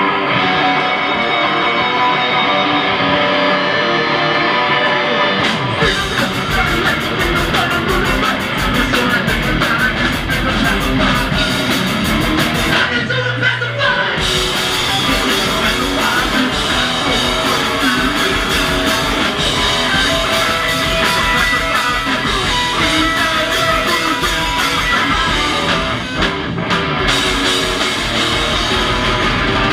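Hardcore punk band playing live at full volume. Electric guitar plays alone for the first five or six seconds, then drums and bass crash in. The band stops briefly about thirteen seconds in, holding a single low bass note, then comes back in.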